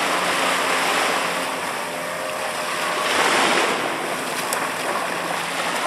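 Sea surf washing onto the beach as a steady rush, with one wave swelling louder about three seconds in.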